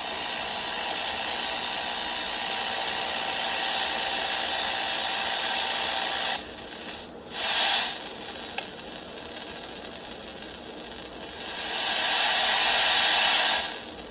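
Static hiss from a small TV set's speaker while it is untuned, as the tuning is turned to find a channel. The hiss drops away about six seconds in, surges back briefly, and swells up again near the end.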